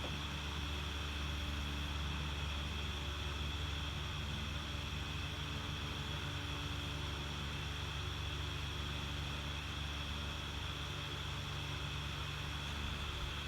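Steady background noise: a constant low hum under a high, even drone, with no distinct events.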